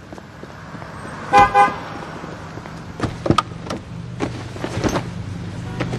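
A Ford Mustang's horn gives two short toots in quick succession about a second and a half in. Scattered clicks and knocks follow, over a low steady hum.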